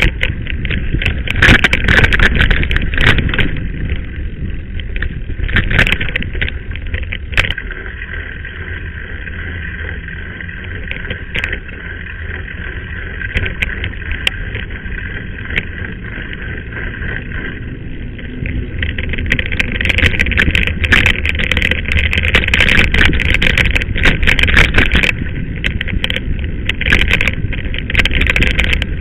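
Mountain bike ridden along a rough dirt track: wind rushing over the microphone, with the bike rattling and knocking over stones and ruts. It is louder at the start and again through most of the last third.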